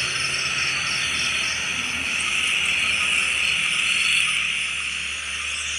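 Steady chorus of night insects chirping, with a quicker pulsing chirp on top.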